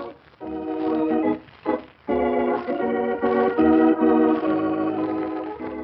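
Organ music playing the program's closing theme: a couple of short chords, then longer held chords.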